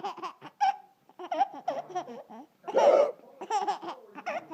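A young child laughing in short, high-pitched bursts, repeated rapidly, with a louder, breathier burst about three seconds in.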